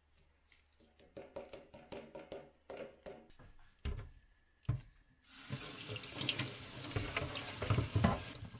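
Light clicks and knocks of hard plastic being handled. From about five seconds in, a kitchen tap runs steadily, splashing water over a clear plastic Dyson vacuum dust bin in a stainless-steel sink as it is rinsed.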